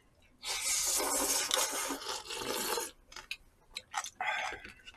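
Loud slurping of jajangmyeon noodles lasting about two and a half seconds, followed by a few light clicks of chopsticks against dishes.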